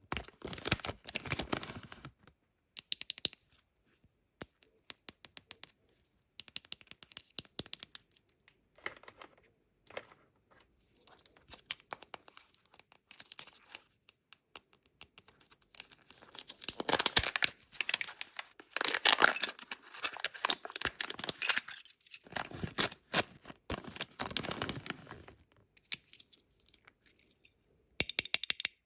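Kinder Joy egg packaging being torn open and crinkled by hand: plastic-foil wrappers ripping and rustling amid many small clicks and crackles. The tearing is loudest and densest a little past the middle, and again shortly after.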